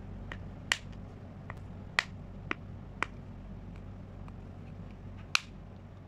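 Homemade pop-it fidget toy, cut plastic-bottle domes glued under card, pressed with the fingers: sharp plastic clicks at irregular intervals, about ten of them.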